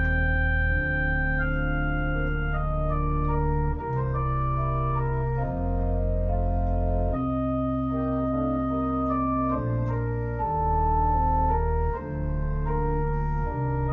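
Organ playing slow, sustained chords as a worship-service prelude, the bass note moving every second or two.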